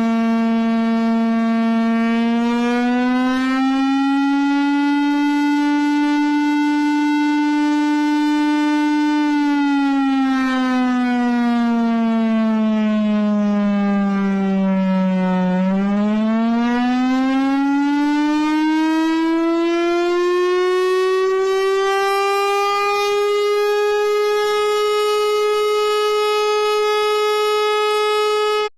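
Air-raid warning siren sounding one long wail: it holds a steady pitch, rises and holds, falls slowly over about six seconds, then climbs higher and holds before cutting off suddenly at the end. It is the alert that warns civilians of an air attack.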